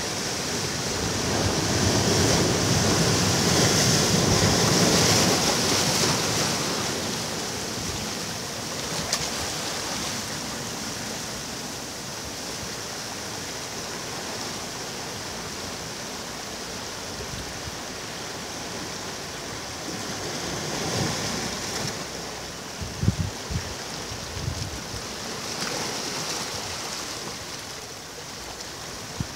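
Sea waves breaking on a beach, a steady wash of surf that swells as a wave comes in a few seconds in and again twice later, with wind on the microphone and a few short thumps in the second half.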